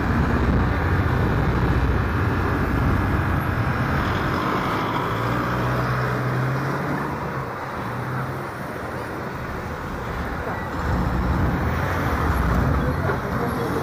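Road traffic: cars and other motor vehicles driving past, with a low engine hum throughout. A steady engine note stands out from about five to seven seconds in; the traffic eases a little after that and grows louder again near the end.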